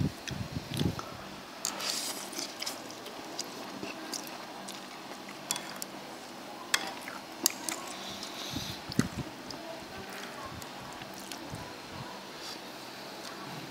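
Eating instant noodles from a bowl of broth: wet slurping and chewing, with scattered short clicks of chopsticks against the bowl.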